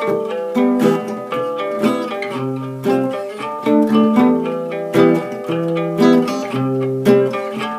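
Old Soviet acoustic guitar played with a handmade pick, an improvised run of picked notes and chords with several sharp plucks a second.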